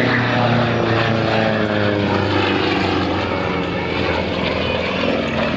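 Nine-cylinder radial engine and propeller of a Sukhoi aerobatic airplane running at display power, its note falling slightly in pitch during the first few seconds.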